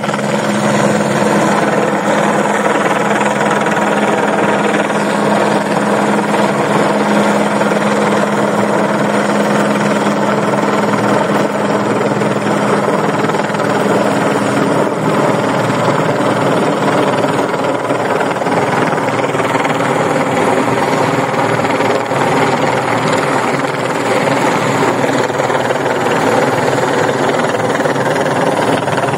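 A helicopter running steadily: a continuous, loud engine and rotor noise with a low steady hum.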